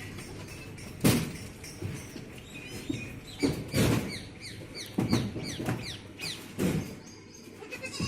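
Small birds chirping rapidly and repeatedly, with four or five loud short knocks or thuds in between.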